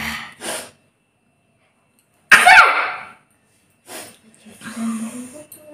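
A child sneezes once, loudly, about two seconds in, after two quick sharp breaths. Quieter breathy, voiced noises follow near the end.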